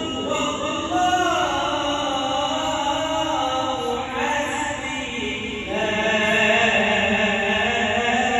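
A man's voice chanting an Islamic ibtihal, a devotional supplication, in long held notes that bend and turn in pitch.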